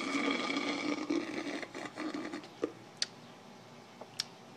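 Iced coffee being sucked up through a plastic straw: a steady buzzy slurp that stops about two and a half seconds in, followed by a few small clicks.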